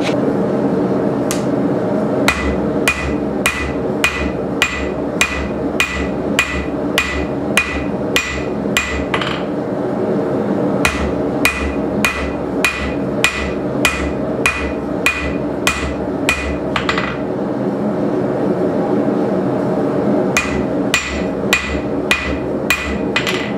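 A hand hammer strikes red-hot coil-spring steel on an anvil, each blow ringing, about two blows a second. The blows come in three runs, with short pauses at about nine and seventeen seconds in.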